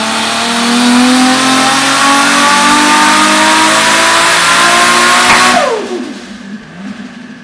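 Turbocharged Nissan R32 Skyline GT-R engine making a full-power pull on an all-wheel hub dyno at 29 psi of boost, its revs climbing steadily and loudly. About five and a half seconds in it comes off the throttle and the revs fall away quickly.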